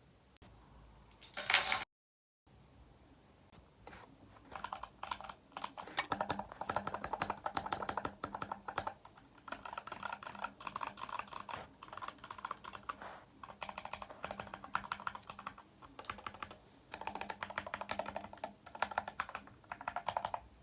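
Typing on a Kemove DK61 mechanical keyboard, most likely fitted with Gateron Yellow linear switches: rapid runs of key clicks with short pauses. A short loud noise and a brief dropout come near the start, before the typing begins.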